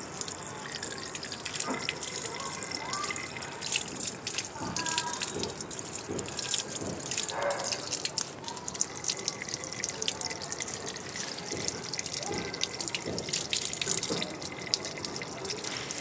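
Water from an outdoor tap running and splashing over a parakeet held under it, with a steady patter of drops.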